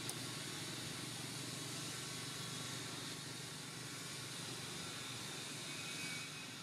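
Steady outdoor background hiss, with no distinct calls or knocks standing out.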